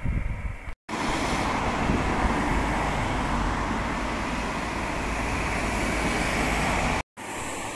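Road traffic passing, a steady rush of tyre and engine noise, with two brief dropouts where the sound cuts out, just under a second in and near the end.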